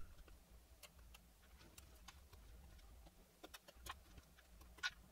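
Faint, scattered light clicks and ticks of a small screwdriver and tiny screws against a clear plastic whoop drone frame as the screws are driven in. The loudest click comes near the end.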